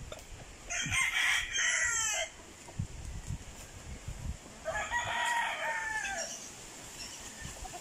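Gamecocks (gamefowl roosters) crowing: one long crow about a second in and another about five seconds in.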